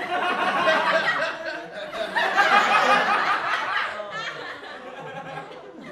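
Crowd laughing together, a laugh-track sound effect of many overlapping voices. The laughter swells about two seconds in and dies away toward the end.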